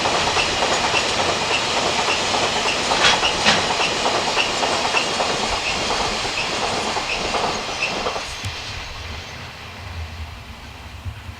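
Train passing at speed: a steady rush of wheel and rail noise with a few sharp clicks from wheels over rail joints, fading away about eight seconds in as it recedes.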